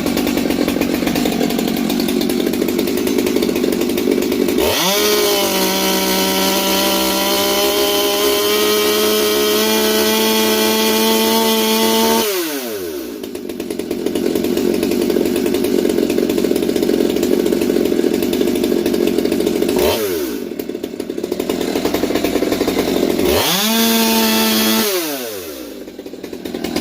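STIHL MS200T two-stroke top-handle chainsaw idling, then revved to full throttle and held for about seven seconds before dropping back to idle, blipped once, and revved again briefly near the end. The owner hears it as running rich on the high end; it has a base-gasket delete and a muffler mod.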